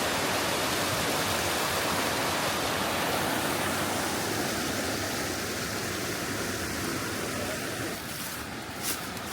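Steady rush of falling water from a waterfall, an even hiss across all pitches that eases slightly near the end.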